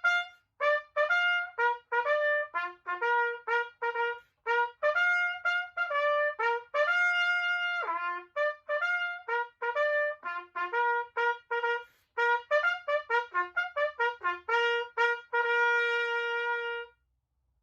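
A solo trumpet playing a bugle call: a string of separate notes with short rests, ending on a long held note.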